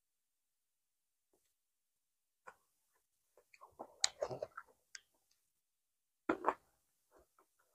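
Close-miked eating sounds. About four seconds in there is a cluster of wet rustles and crackles as a lettuce-wrapped rice roll is dipped in a bowl of fish sauce. Just after six seconds come two loud crisp bites, then chewing.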